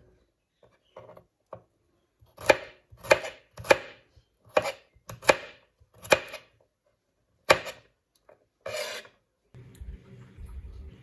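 Chef's knife chopping garlic cloves on a wooden cutting board: a run of sharp knocks, roughly one every half second to second, ending in one longer stroke shortly before the end.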